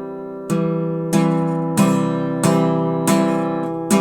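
Acoustic guitar strummed slowly and evenly, one chord strike about every two-thirds of a second, six strikes in all, each left ringing.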